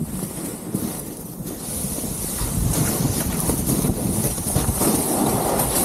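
Wind buffeting the microphone: a steady, flickering noise, heaviest at the low end, with a hiss joining about a second and a half in.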